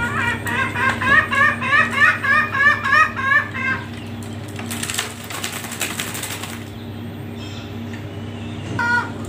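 A bird calling a fast run of repeated chirps, about four a second, for nearly four seconds. Then about two seconds of rustling and wing-flapping, and one short call near the end.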